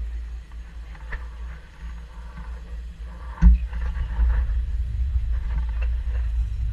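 Low, fluttering rumble of a moving canal tour boat, with wind buffeting the microphone. A single sharp thump comes about halfway through, and the rumble is louder after it.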